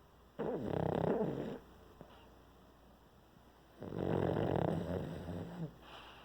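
A pug snoring: two long rasping snores a few seconds apart, the second a little longer than the first.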